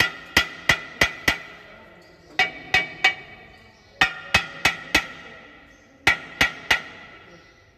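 A hammer tapping metal parts of a Scania truck's differential housing, in quick groups of three to five sharp strikes, each with a short metallic ring.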